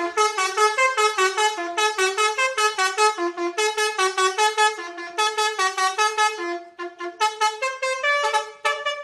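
Bus telolet horn, a multi-tone musical horn, playing a quick tune of short notes that step up and down in pitch, several a second, softening briefly past the middle.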